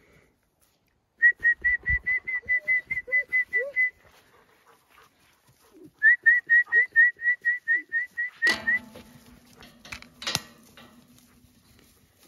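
Alpaca alarm calls: two runs of shrill, rapidly repeated notes, about six a second, each lasting around three seconds. Near the end of the second run comes a sharp knock with a low ringing hum after it, and another knock a couple of seconds later.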